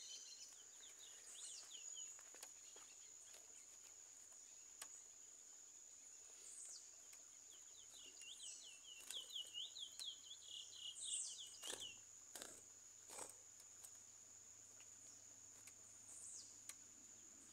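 Curió (lesser seed-finch) singing faintly, a fast run of short whistled notes at the start and again from about eight to twelve seconds in, over a steady high insect drone. A few faint knocks come in between.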